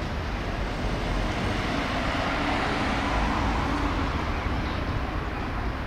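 Street tram moving off from a stop and rolling past: a steady rumble of wheels and running gear that swells in the middle, with a faint motor hum as it passes.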